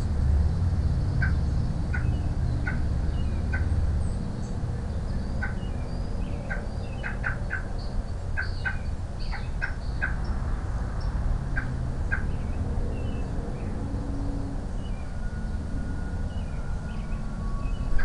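American robins at the nest giving short, sharp chirps, repeated irregularly and thickest through the middle, over a steady low rumble.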